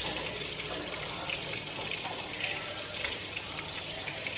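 Whole climbing perch frying in oil in a nonstick pan on a low flame: a steady sizzle with small crackles.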